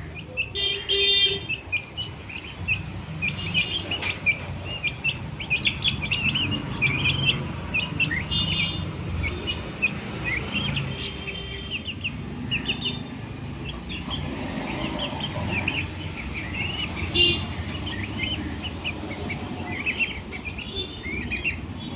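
A brood of baby chicks peeping: many short, high chirps overlapping without pause, with three brief louder, shriller calls standing out above the rest, over a low background rumble.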